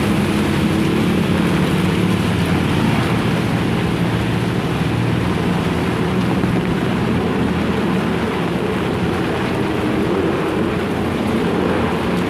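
Heavy rain pouring down with strong wind: a steady, loud rush with a deep rumble underneath.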